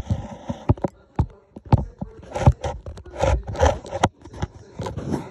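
Irregular scrapes, rubs and knocks of things being handled on a wooden tabletop, mixed with handling noise as the phone is moved about.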